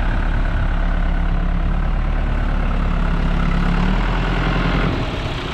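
Forklift tractor's diesel engine running steadily, revs creeping up about four seconds in, then easing off a second later.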